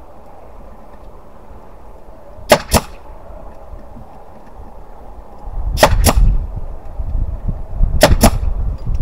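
Pneumatic nail gun firing nails into wooden planter boards three times, each shot a quick double crack, a few seconds apart. A low rumble comes in about halfway through.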